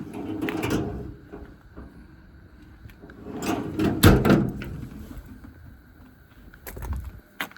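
Metal compartment doors on a truck's service body being worked: a rattling scrape near the start, another longer rattle peaking in a sharp bang about four seconds in as a door shuts, and a few light clicks near the end.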